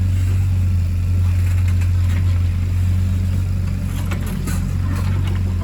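An excavator's diesel engine running steadily in a low drone, with a few short knocks about four to five seconds in.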